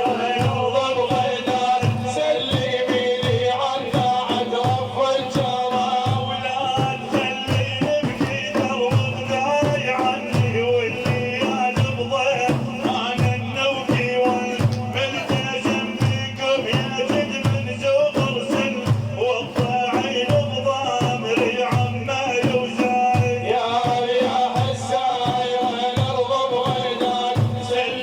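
Hand drums beating a steady rhythm, about two strokes a second, under sustained melodic tones in praise music.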